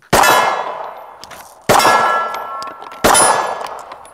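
Three 9mm pistol shots from a Glock 19 Gen 5, about a second and a half apart. Each shot is followed by a long ringing decay, typical of rounds striking small steel plate targets.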